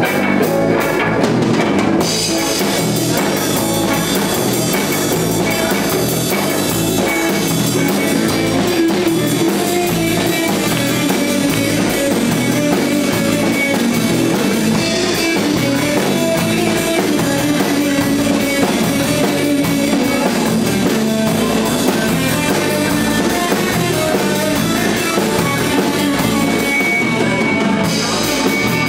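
A live rock band playing loud amplified music, with a drum kit keeping a steady beat under an electric guitar.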